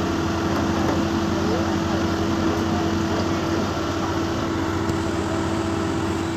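A heavy machine's engine running steadily at a constant pitch, with no revving.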